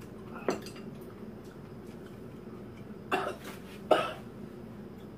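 A woman coughing: one short cough about half a second in, then a double cough and a sharp single cough a little later, the last the loudest.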